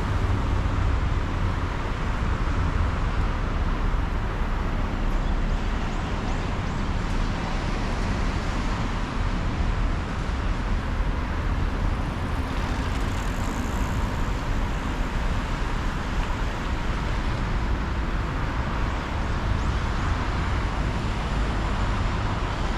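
Steady outdoor background noise: a constant low rumble with an even hiss above it, with no single sound standing out.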